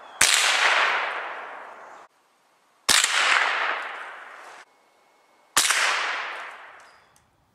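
Three shots from a Savage A22 .22 rifle, about two and a half seconds apart. Each sharp crack is followed by a fading rush of noise that cuts off abruptly.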